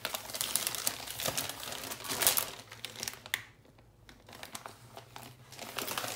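Plastic packaging of a packet of flour tortilla wraps crinkling as it is handled: a long, loud spell of crackling in the first three seconds, then quieter crinkles and a second spell near the end.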